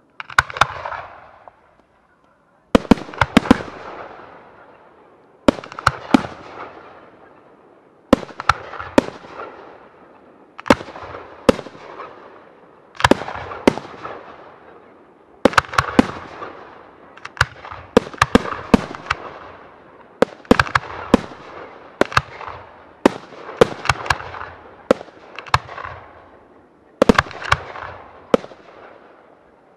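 Aerial firework shells bursting in a professional display. Clusters of sharp bangs come about every two and a half seconds, and each cluster trails off before the next.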